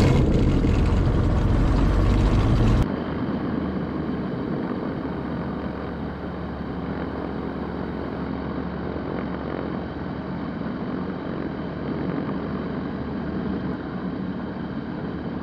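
The Rotax 912ULS flat-four engine and propeller of a Zenith STOL CH 701 light aircraft running steadily, just after starting. About three seconds in the sound changes abruptly from a loud, full sound to a quieter, more muffled steady hum.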